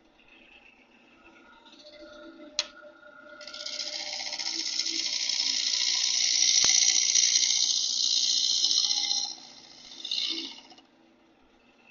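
Wood lathe running with a low hum while a bowl gouge cuts the spinning wood: a hissing cut begins about three and a half seconds in and lasts some six seconds, then a second short cut near the end. A single sharp click comes just before the first cut.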